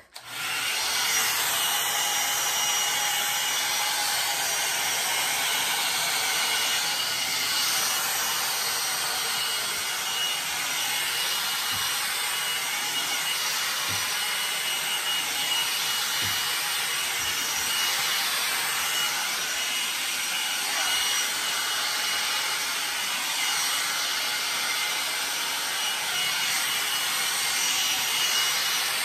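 Hot-air blow dryer brush running at a steady level: an even blowing noise with a thin high whine, switching on right at the start.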